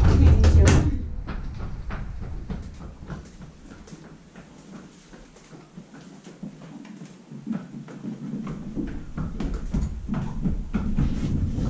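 A stall door sliding shut with a rumble and clank in the first second, then a horse's hooves clopping on the paved barn aisle, fading in the middle and growing louder again as the horse walks back near.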